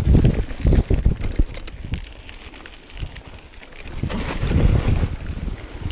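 Mountain bike riding down a dirt woodland trail: low rumble of tyres and wind buffeting the camera microphone, with a stream of clicks and rattles from the bike over rough ground. The rumble surges in the first second and a half and again about four seconds in.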